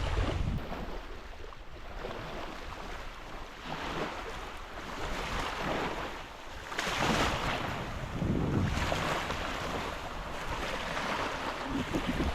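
Ocean waves washing onto the shore, swelling and falling back in surges, with gusts of wind rumbling on the microphone.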